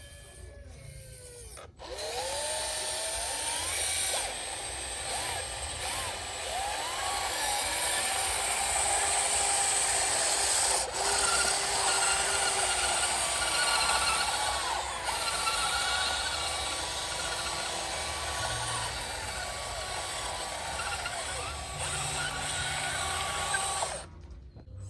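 Small electric motors and gearboxes of radio-controlled construction models whining, their pitch rising, falling and holding as the machines change speed, over a steady hiss. The sound starts after a brief break about two seconds in.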